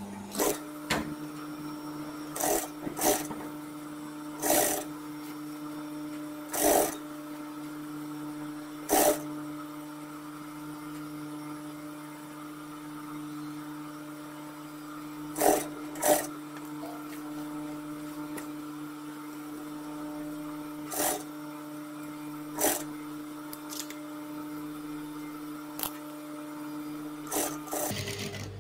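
Sewing machine running: a steady motor hum, broken by about a dozen short, louder bursts as it stitches the seam.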